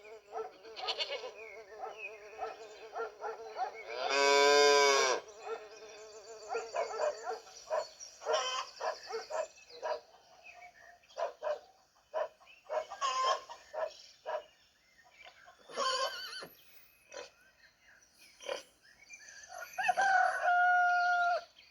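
Farmyard animals calling: many short clucking calls throughout, with a loud, drawn-out, wavering bleat about four seconds in and a long, steady-pitched call near the end.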